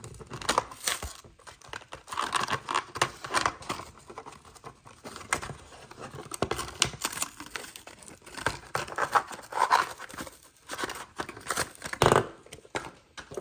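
A Hot Wheels blister card being torn open by hand: cardboard backing ripping and the plastic blister crinkling, in irregular rips and rustles.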